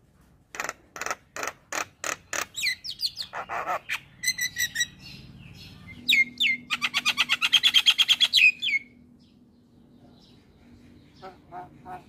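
Male Javan myna singing a varied song: a run of sharp, harsh calls about three a second, then whistled notes sliding up and down, then a fast rattling series of about eight notes a second. After a pause of a couple of seconds, new repeated calls start near the end.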